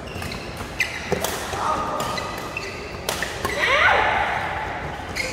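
Badminton rackets striking a shuttlecock in a doubles rally: several sharp hits a second or two apart, ringing in a large hall, with shoes squeaking on the court mat about three and a half to four seconds in.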